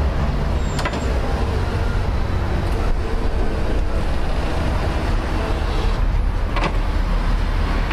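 Electric window regulator motor of a rack-type power window in a car door running and driving the glass, heard as a steady low drone with a couple of short clicks. The glass now stops short of the bottom because a welded-on nut keeps the rack off its worn last teeth, the fix for the regulator jamming when fully lowered.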